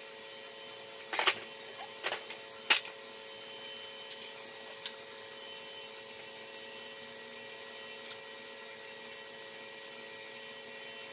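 Sharp metal clinks of sockets and hand tools while bolts are undone on the engine's lower timing cover: a short cluster a little over a second in, another near two seconds and a single loud clink just before three seconds, then a few faint ticks. A steady background hum runs underneath.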